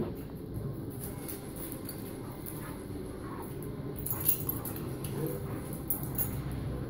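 An English mastiff puppy and a bulldog play-fighting on a tile floor: scuffling and body noises, with a burst of sharp clicks about four seconds in and a few short dog noises after it.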